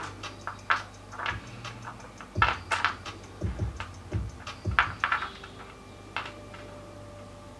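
Pieces of rough opal clicking and knocking against each other and against the surface as fingers pick them up and turn them, in irregular small taps that thin out after about five seconds.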